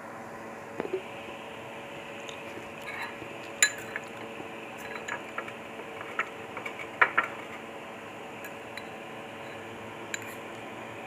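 Metal fork and spoon clinking and scraping against ceramic soup bowls during eating, in scattered sharp clicks; the loudest come about three and a half seconds in and again around seven seconds.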